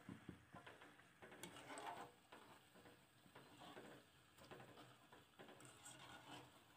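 Faint, irregular crackling and sizzling of breaded egg and potato kababs deep-frying in hot oil.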